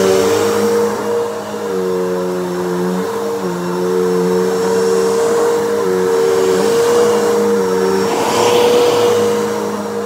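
Upright vacuum cleaner running on carpet while picking up shredded paper, its motor tone dipping and rising every second or two as it is pushed back and forth. A brief rush of hiss comes about eight seconds in.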